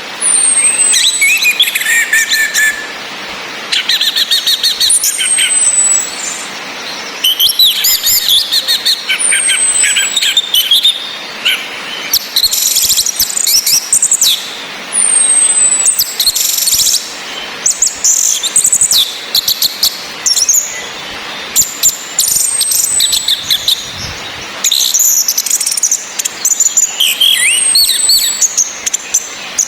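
Orange-headed thrushes calling: a high, thin whistle that falls in pitch, repeated about every five to six seconds, between bursts of quick, chirpy song phrases. A steady hiss of rain runs underneath.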